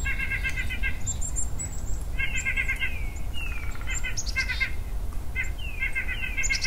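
White-breasted nuthatch calling: several quick runs of short, nasal, evenly repeated notes, with thin high chirps and a few falling notes between them, over a steady low rumble.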